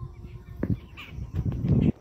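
Jungle babblers giving short, harsh chattering calls, the sharpest about a second in. A loud, low, muffled rumble covers the second half and cuts off just before the end.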